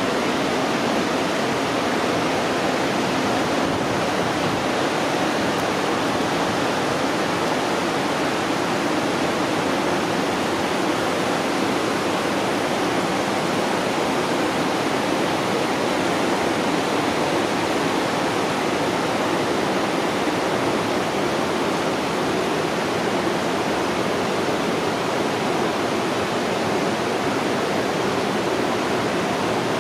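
Fast-flowing creek rushing over rocks and small rapids: a steady, even rush of water with no breaks or changes.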